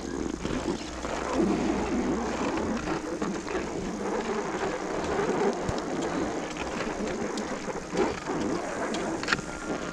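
Slow shuffling and scraping over packed snow, a steady rough noise, with a couple of sharp knocks near the end.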